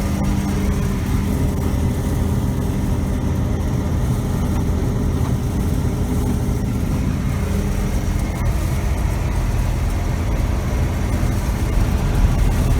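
John Deere 3300 combine running steadily while shelling corn, heard from inside the cab: a constant engine and machinery drone with a low steady hum.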